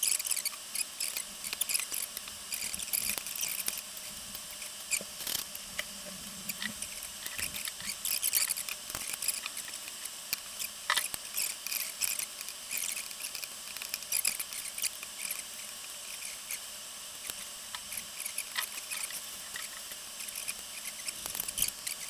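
Continental GP 5000 road tyre being worked by hand onto a carbon clincher rim: irregular squeaks of rubber on the rim, with scratching and small clicks.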